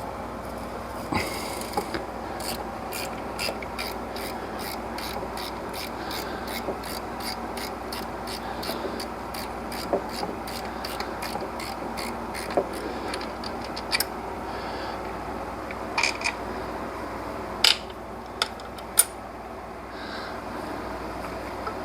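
Hand ratchet wrench clicking in a quick, even run of strokes for about ten seconds, then a few scattered, louder clicks and knocks, over steady background noise.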